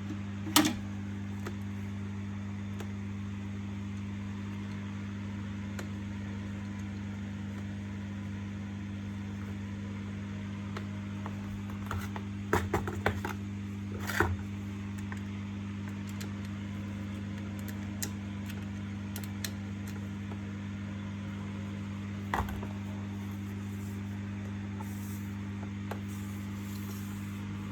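A steady low electrical hum, with a few short knocks and clicks: one about half a second in, a cluster about halfway through and one more about three-quarters of the way through.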